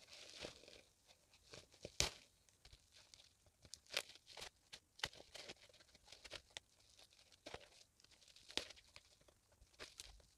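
Seam ripper cutting the stitches of a dress seam: faint, irregular small snaps and tearing ticks as the threads give, with some fabric rustling.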